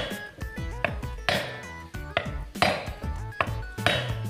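Hand hammer striking steel parts in a tractor rotavator's gear case: repeated metallic blows, about two a second, each ringing briefly. Background music plays underneath.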